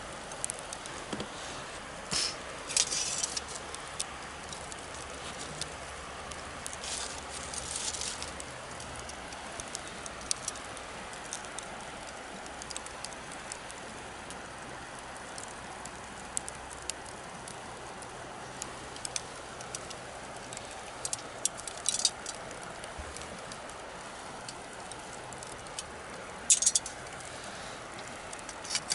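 Wood bonfire crackling over a steady hiss, with sharp pops that bunch into louder clusters a few times: about two seconds in, around seven seconds, near twenty-two seconds and again near the end.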